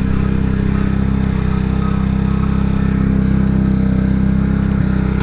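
CG250-type 230cc single-cylinder four-stroke motorcycle engine idling steadily at a really high idle speed.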